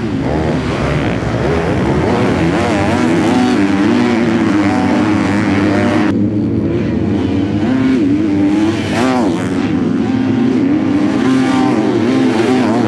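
Four-stroke motocross bike engines racing on a dirt track, their pitch rising and falling as the riders rev and shift, with an abrupt change in the mix about six seconds in.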